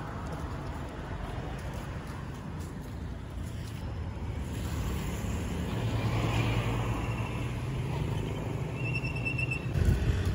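Street traffic with a city bus driving past close by: its low engine hum builds to a peak about six seconds in and holds for several seconds. A short, louder low thump comes near the end.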